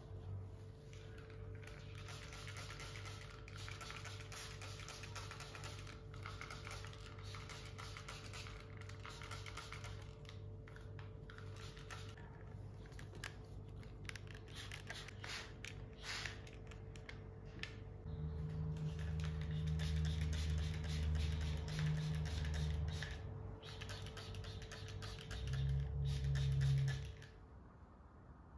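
Close handling sounds of a peace lily's leaves: dense small clicks, rubbing and rustling as the leaves are wiped by hand and misted from a plastic trigger spray bottle, over a faint steady hum. A louder, lower rumble comes in about two-thirds of the way through and again briefly near the end.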